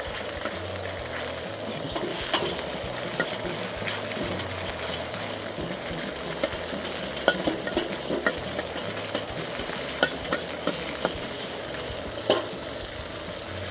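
Beef sizzling steadily as it is stir-fried in a wok over a high-heat gas wok burner. A metal wok spatula scrapes and clinks against the pan now and then.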